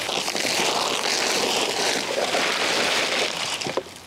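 Continuous rustling of a plastic trash bag as debris is pushed into it, a steady rushing noise that stops suddenly near the end.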